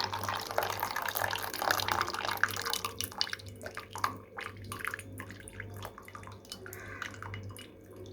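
Hot herbal decoction (kadha) poured from a pan into a clean container. A steady pouring stream for the first few seconds thins into scattered drips and small clicks.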